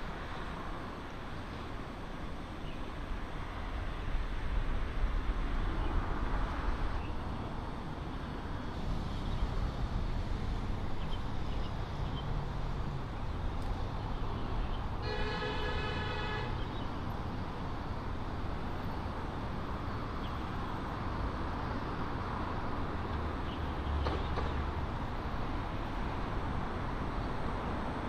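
Steady rumble of city traffic, with a vehicle horn honking for about a second and a half about halfway through.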